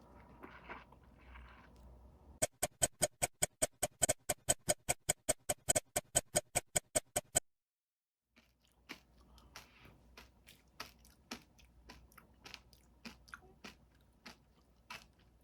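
A rapid, perfectly even ticking, about five ticks a second for some five seconds, stops dead; after a second of silence come irregular faint crunching clicks of someone chewing the crunchy seeds of a granadilla.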